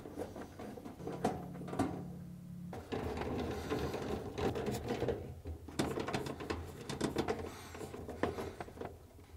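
Screws being turned by hand with a nut driver into a refrigerator's freezer evaporator cover: faint clicks and scraping in a few short spells.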